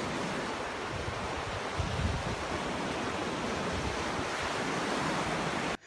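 Steady rushing noise with a few low swells, cut in abruptly and cut off abruptly near the end.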